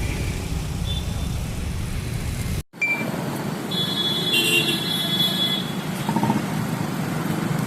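Road traffic noise with a steady low rumble. The sound cuts out abruptly for an instant just under three seconds in and resumes lighter. Around the middle, a high-pitched horn-like tone sounds for about two seconds.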